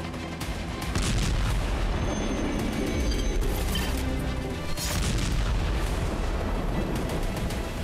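Dramatic news-package background music with deep booming cinematic hits, the first about a second in.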